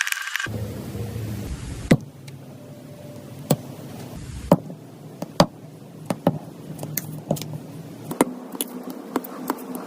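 Squishy play dough being handled, giving irregular sharp sticky clicks and taps, about a dozen in all, over a low steady hum.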